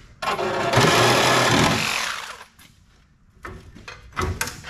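Cordless reciprocating saw cutting through the car body's sheet metal for about two seconds, starting abruptly and winding down as the trigger is released. A few metal clanks and knocks follow near the end.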